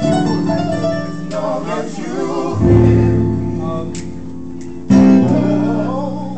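Live band music: sustained chords with deep bass notes entering about two and a half seconds in and again near five seconds, and a voice singing over them.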